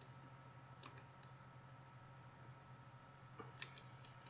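A few faint clicks of a computer mouse and keyboard, about a second in and again near the end, over a steady low hum; otherwise near silence.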